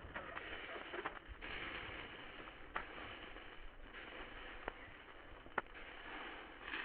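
Soft rustling in bursts of about a second, broken by a few sharp clicks or snaps, the loudest about two-thirds of the way through.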